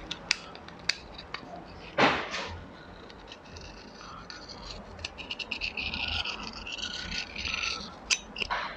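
Hand deburring tool scraping the freshly machined edges of a motorcycle top yoke: light clicks and short scratchy strokes, with one louder rasp about two seconds in and a busier run of fast scraping in the second half.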